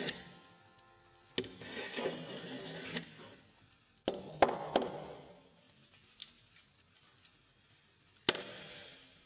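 Stanley No. 9-1/2 cast iron block plane cutting along the edge of a wooden beam in three passes. Each pass opens with a sharp knock and is followed by about a second of rasping shaving.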